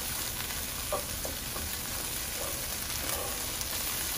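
Onion, bell pepper and garlic sizzling as they sauté in a hot skillet, stirred with a wooden spoon, with a few brief scrapes of the spoon against the pan.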